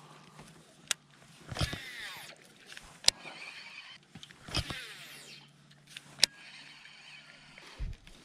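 Baitcasting fishing reel being cast and worked: two sweeping whirs of the spool and line, and several sharp clicks of the reel, over a faint steady hum that stops near the end.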